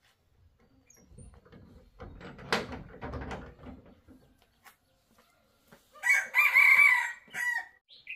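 A rooster crowing once, a long call in several parts about six seconds in, followed by a short call near the end. Before it come a couple of seconds of muffled knocking and rustling.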